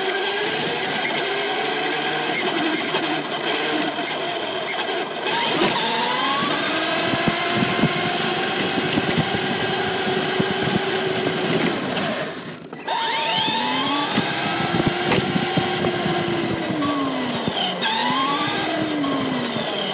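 Traxxas radio-controlled truck's motor and drivetrain whining, the pitch rising and falling with the throttle, cutting off briefly about two-thirds of the way through. Heard from a recorder mounted on the truck's body.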